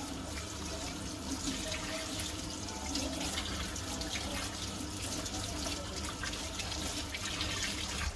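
Water running steadily from a tap into a sink, with a constant splashing hiss.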